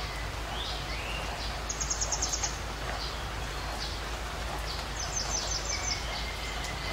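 Outdoor ambience of birds calling over a steady background hiss. There are scattered short chirps, and two rapid high trills of quick repeated notes, about two seconds in and again around five seconds in.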